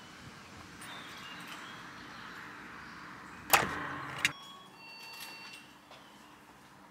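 Footsteps crunching on gravel, then a key working the lock of a metal door: a sharp loud clack about three and a half seconds in and a second click just after, as the door is unlocked and opened.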